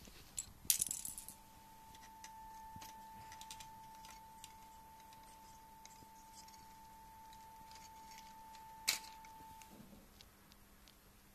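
Small plastic clicks and rattles as a LEGO Power Functions plug and cable are handled: a quick flurry of clicks about a second in and one sharp click near nine seconds. A faint steady high whine runs under most of it.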